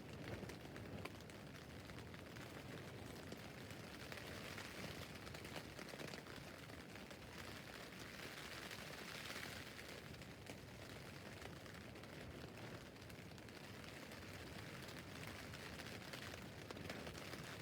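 Rain falling on a tent's fabric roof: a steady patter of many small drops, swelling slightly for a moment about halfway through.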